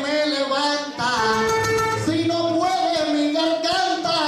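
A man singing improvised verse in the Cuban punto style, long held notes that waver in pitch, over acoustic guitar accompaniment.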